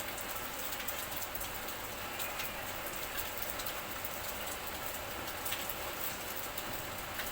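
Steady rain falling, with many close individual drops ticking sharply against the hiss of the downpour.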